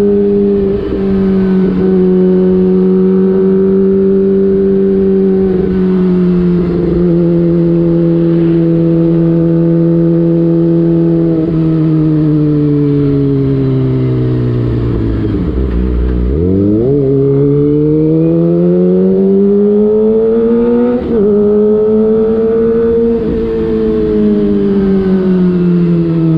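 Kawasaki Ninja ZX-25R's 250 cc inline-four, on an open aftermarket exhaust with the dB killer out, running at part throttle. The engine note sinks slowly, stepping down at a couple of short breaks. About halfway it drops low, then climbs again, and it eases off near the end.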